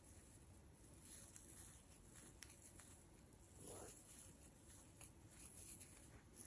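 Near silence, with faint soft rustles and a few light ticks from a crochet hook working yarn; one slightly longer rustle a little under four seconds in.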